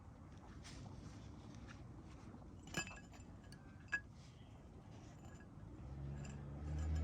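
Steel rear-differential parts clinking as they are handled: two sharp ringing clinks about a second apart, with quieter taps and rustling between. A low hum builds near the end.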